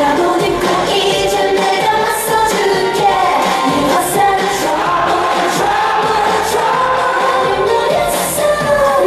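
K-pop dance song with female group vocals, played loud over a stage sound system.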